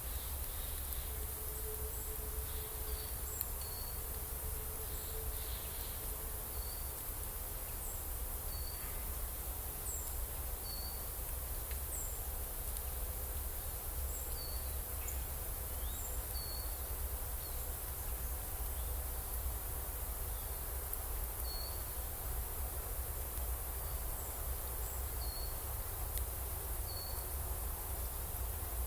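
Forest ambience: short high chirps repeat every second or two over a steady low rumble and a constant high hiss.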